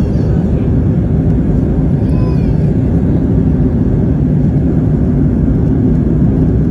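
Steady airliner cabin noise in flight: the constant low rumble of the jet engines and airflow heard from a passenger seat, with a faint short voice-like sound about two seconds in.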